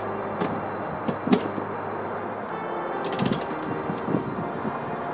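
Metal clicks and light scraping from a hose-bib thread-cleaning tool being handled and turned by hand on the spigot threads. A few separate clicks come early, then a quick run of clicks about three seconds in.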